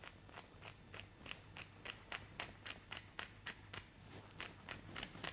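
Kitchen scissors snipping along the frills of a lemon sole, cutting off the fin fringe in a steady run of short snips, about three or four a second.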